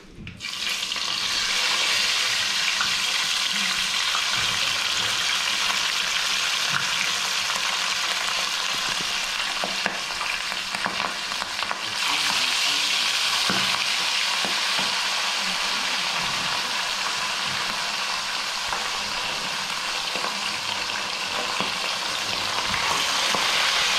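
Whole fish frying in a pan of hot oil: a steady sizzle that starts sharply about half a second in as the fish goes into the oil. The sizzle steps up again about halfway through as the fish are moved and turned with metal tongs.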